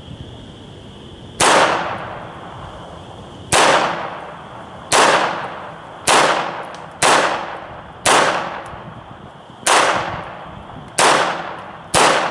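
Smith & Wesson Model 41 .22 rimfire semi-automatic target pistol fired nine times in a steady string, one to two seconds apart, each a sharp crack with a short fading tail. The pistol keeps cycling through the string, which the shooter takes for the magazine now functioning better.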